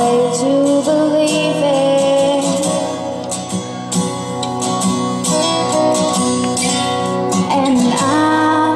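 Live song: a female singer holding long, gliding notes over a strummed acoustic guitar.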